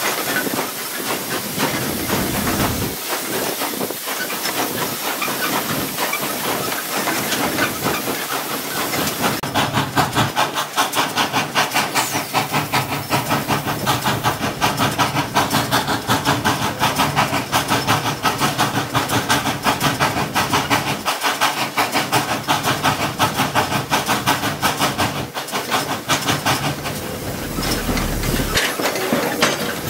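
Steam locomotive running, heard from inside its cab: a steady hiss of steam, joined about a third of the way in by a fast, even beat of exhaust chuffs as it works along the track.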